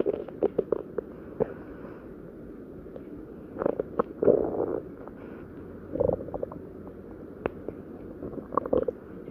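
Human stomach growling: irregular bursts of gurgling rumbles with pauses between them, coming in clusters at the start, around four seconds in, about six seconds in, and near the end.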